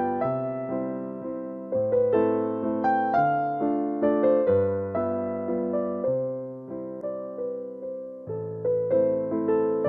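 Background music: an electric piano playing chords and a simple melody, each note struck and then fading.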